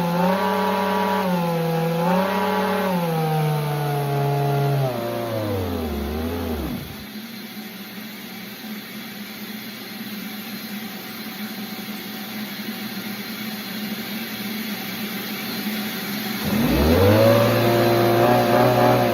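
An engine running with its pitch rising and falling, then winding down to a stop about seven seconds in. Near the end it starts up again, its pitch climbing and then settling at a steady run.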